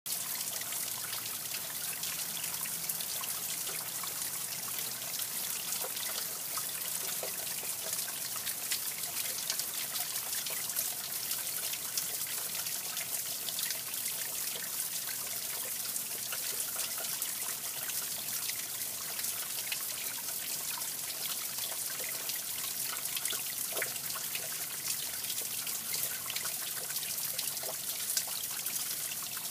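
Shallow water trickling over rocks in a small stream: a steady babble with many small plinks and splashes scattered through it.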